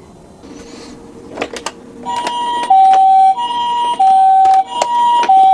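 Toy ambulance's electronic two-tone siren, starting about two seconds in and alternating a higher and a lower note roughly every 0.7 s, in the Japanese ambulance 'pee-poh' pattern, with sharp clicks mixed in.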